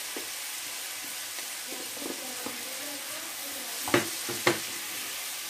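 Zucchini, garlic and flaked salt cod sizzling in a frying pan with a steady hiss while being stirred with a wooden spoon. About four seconds in come two sharp knocks, half a second apart, as the emptied bowl is set down on the glass-ceramic hob.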